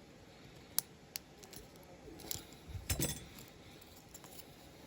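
A few sharp clicks and snips of the plastic interior seats of a diecast model car being cut away with a small hand tool, with a louder knock and short clatter of parts about three seconds in.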